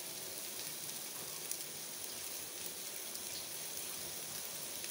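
Gola kebabs sizzling steadily as they shallow-fry in a thin layer of oil in a frying pan.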